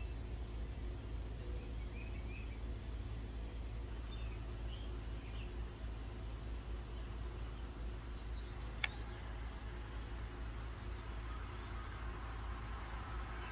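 A cricket chirping steadily, a few short high chirps a second with brief pauses, over a low outdoor rumble. A single sharp click about nine seconds in.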